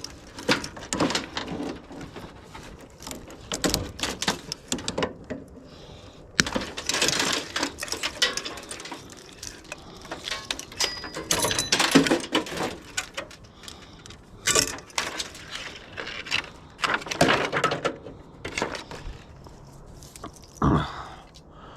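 Irregular clicking and clattering of metal and plastic parts being handled and pulled apart by hand, with a short lull partway through.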